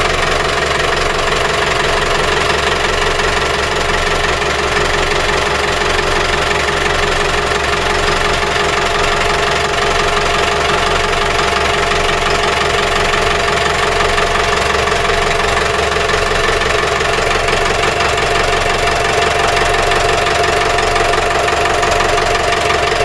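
Powered fishing boat's engine running steadily at idle, with a fast, even knocking beat.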